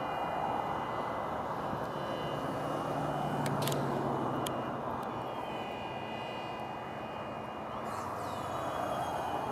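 Steady rush of highway traffic going by at speed, swelling as vehicles pass near the start and again near the end. A few short, sharp pops come about halfway through.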